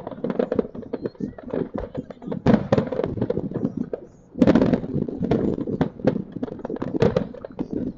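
Aerial fireworks shells bursting, with a rapid run of crackling and popping reports; the crackle drops away briefly about halfway through, then a loud burst starts a dense run again.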